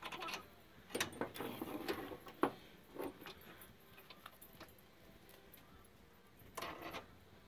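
Hand tools and metal parts clinking and tapping several times in the first three seconds, then a short scrape near the end.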